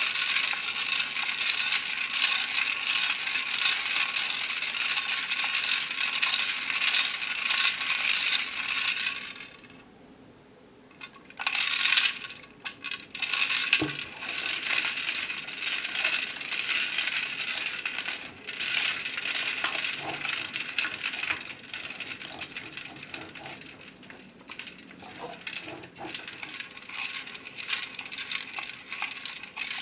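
Small plastic pearl beads clattering and clicking against one another and a container in a dense, fast rattle. The rattle stops about nine seconds in and resumes about two seconds later with a sharp clatter, then goes on more unevenly.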